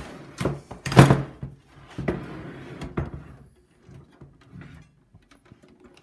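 The open metal case of an HP Pavilion desktop tower being handled and stood upright on a desk: a few knocks and scrapes, the loudest about a second in, then smaller ones fading out.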